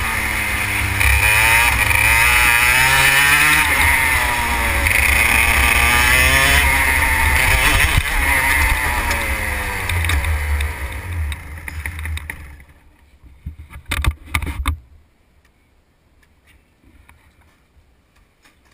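Racing kart engine heard from onboard, rising and falling in pitch as it revs through the corners, then dying away about twelve seconds in as the kart slows into the pits. A few sharp knocks follow a little later.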